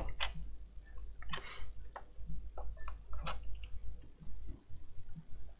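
Scattered light clicks and taps of multimeter test-lead banana plugs being pulled from one pair of binding posts on a bench power supply and plugged into another, over a steady low hum.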